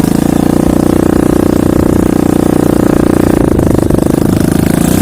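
Motorcycle engine running steadily under way, with a brief knock about three and a half seconds in.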